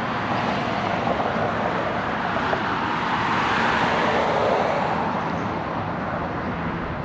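Outdoor traffic noise: a passing vehicle swells up about three seconds in and fades again, over a steady hiss.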